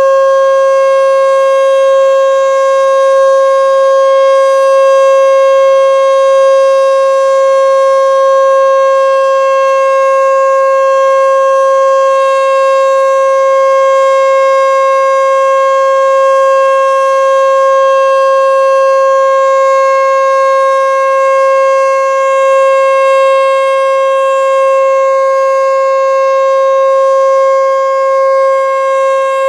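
American Signal T-121 electromechanical outdoor warning siren sounding a loud, steady full-alert tone held at one pitch, the alert signal of a nuclear power plant siren test.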